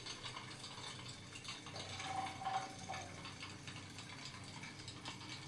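Tin pop-pop (putt-putt) toy boat running on water, its steam-heated diaphragm boiler making a fast, faint popping. A faint steady tone comes in briefly about two seconds in.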